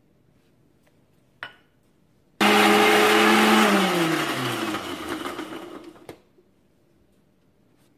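Indian mixer grinder (mixie) with a steel jar, run in one short pulse on sesame seeds, green chillies, garlic and tamarind: it starts suddenly and runs loud for about a second. After it is switched off, the motor winds down with a falling whine over about two seconds. A single knock comes about a second before it starts.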